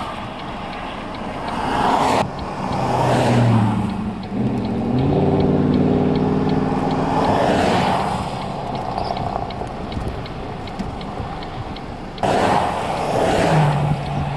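Cars passing one after another on the road close by, about four times, their tyre and engine noise swelling and fading with each pass. An engine's hum stands out through the middle passes.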